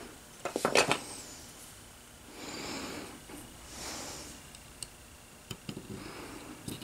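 Small metal parts of a hand-built knurling tool clicking and clinking as they are handled and set down on a cloth-covered workbench, with a quick cluster of clicks about a second in and softer rubbing sounds and single ticks after.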